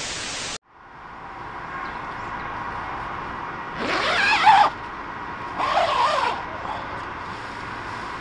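A brief burst of TV-static hiss that cuts off sharply, then a one-person tent's door zipper pulled open in two strokes, about four and six seconds in, the first the louder.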